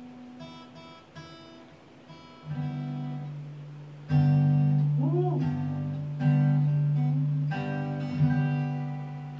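Acoustic guitar played solo: a few soft picked notes, then strummed chords that ring out, the loudest about four seconds in, fading near the end.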